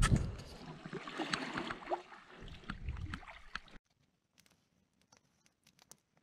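A canoe being worked through brush and a fallen spruce in a shallow river: a loud knock on the hull, then water splashing and gurgling, branches scraping and more knocks. This cuts off suddenly about four seconds in, leaving near silence with faint ticks of a campfire crackling.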